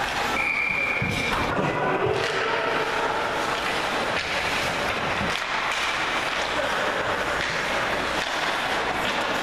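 Ice hockey game sound in an indoor rink: a steady, loud wash of noise from skating play and the arena, with a single high tone lasting about a second starting about half a second in, and faint voices.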